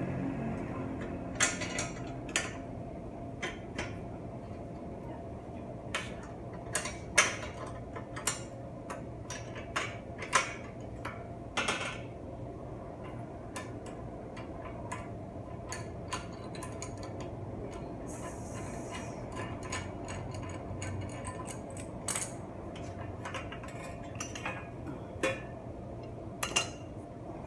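Irregular metallic clinks and taps of hand tools and bicycle parts being handled while a mountain bike is taken apart, over a steady low hum.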